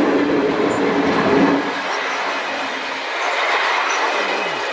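Train running on the rails: a steady drone stops about a second and a half in, leaving a rushing noise of the wheels on the track. A short falling tone comes near the end.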